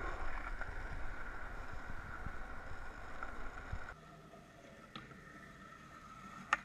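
Skateboard wheels rolling on rough asphalt: a steady rumble with a faint whine. After a sudden cut it goes quieter, and near the end there is one sharp clack of a skateboard.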